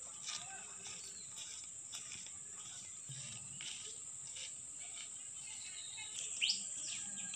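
Rural daytime ambience: a steady high-pitched insect drone, with a bird giving a few loud, falling whistled calls near the end.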